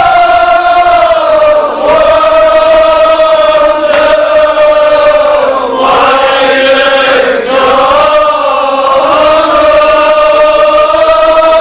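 Many men's voices chanting together in long, held notes, with the pitch sagging and rising again about six and seven and a half seconds in.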